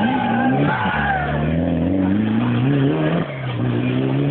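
Rally car accelerating away out of a hairpin, engine revs climbing and then dropping sharply about three seconds in as it shifts up a gear.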